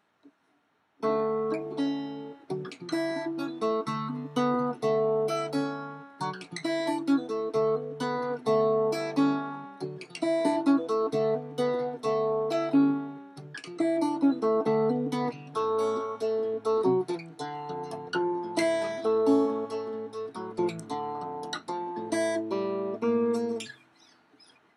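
Gretsch Jim Dandy parlour acoustic guitar, with an agathis body and phosphor bronze steel strings, played as a run of picked notes and chords. It starts about a second in and stops shortly before the end.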